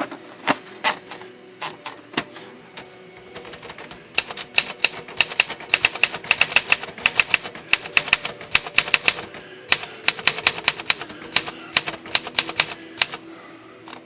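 Torpedo 18B manual typewriter being test-typed on its freshly fitted rubber platen roller: a few scattered keystrikes, then about nine seconds of quick typing at several strikes a second, thinning out near the end.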